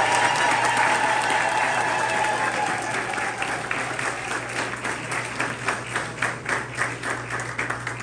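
Church congregation applauding after the final blessing, dense at first and thinning to scattered claps toward the end. A held tone blends in during the first few seconds and fades out.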